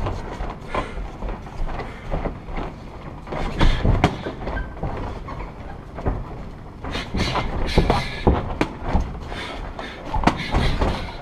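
Muay Thai sparring: boxing gloves and shin guards smacking against guards and bodies, with feet thudding on the ring canvas, in irregular flurries of strikes.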